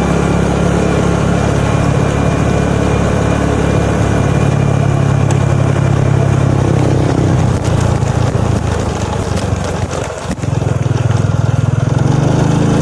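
Motorcycle engine running steadily while riding, over a constant rush of wind and road noise. About ten seconds in the engine note eases off briefly, then picks up again.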